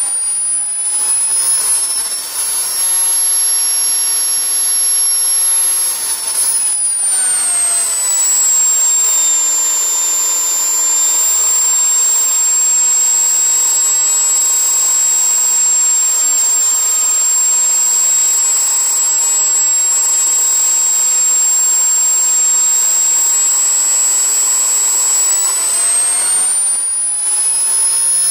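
Home-built 66 mm model jet turbine running loud, a high-pitched turbine whine over a rush of exhaust. The whine climbs a little at the start, drops to a lower steady pitch about seven seconds in as the turbine spools down, and rises again near the end as it spools back up.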